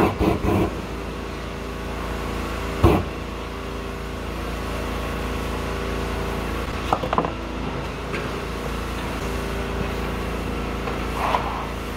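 A steady motor hum with several level tones, broken by a few short knocks.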